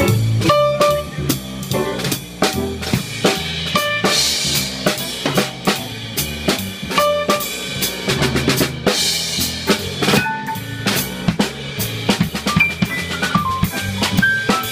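Jazz drum kit played live: a busy run of snare and bass drum hits and rimshots, with cymbal crashes washing over it about four seconds in and again about nine seconds in.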